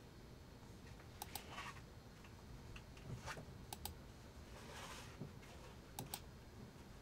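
Faint clicking at a computer's mouse and keyboard: a few short clicks, several in quick pairs, spaced a couple of seconds apart, with soft rustles between them over a low hiss.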